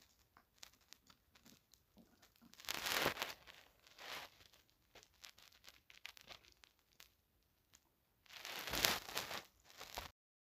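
Faint handling noise of hands working a crochet hook through yarn: small ticks and rustles, with two louder rustling scrapes, one about 3 seconds in and one near the end. The sound cuts off suddenly just before the end.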